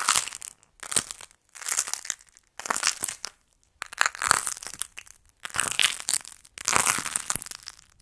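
Hands crushing and breaking hardened clay macarons, the clay cracking and crackling in about seven separate bursts.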